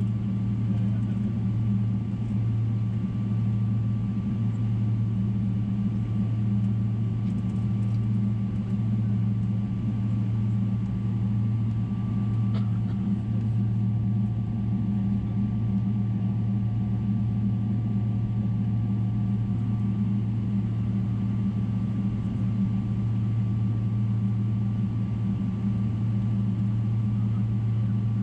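Steady cabin drone of a Boeing 777-300ER in flight: its GE90 engines and the rushing air heard from inside the cabin, a deep even hum with a faint high whine over it. A light click about twelve seconds in.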